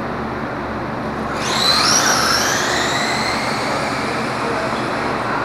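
Two radio-controlled drag cars launching off the start line about a second and a half in. Their electric motors give a high-pitched whine that rises in pitch and then fades as the cars run away down the strip.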